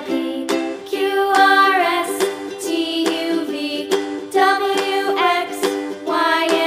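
Background music: a bright melody over repeated chords, with notes changing every fraction of a second.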